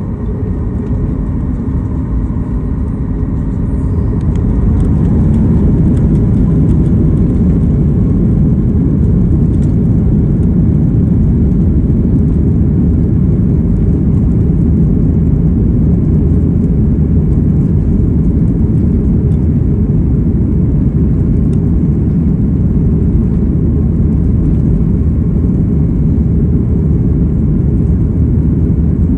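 Cabin noise of a Boeing 737 MAX 9 taxiing: a steady low rumble from its CFM LEAP-1B engines and rolling gear, heard inside the cabin. It grows louder over the first five seconds or so, then holds steady.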